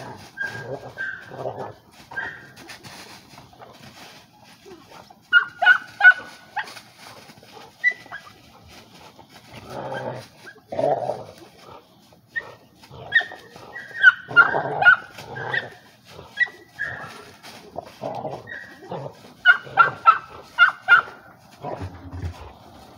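A pit bull-type dog hanging from a rope-hung tire on a spring pole, making short high whines in several clusters as it grips and tugs, with dry leaves rustling and crunching under its feet.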